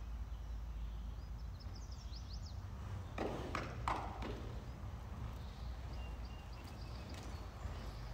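Horse moving on soft sand arena footing under a steady low rumble, with a short noisy burst a little past three seconds in.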